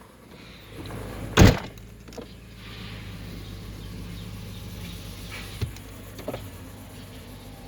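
An SUV's car door slams shut about a second and a half in, the loudest sound. The engine idles steadily underneath, with a couple of small clicks later on.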